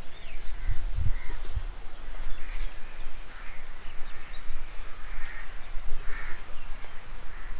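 Crows cawing, several separate caws spaced through, over a steady low rumble. A few low thumps come about a second in.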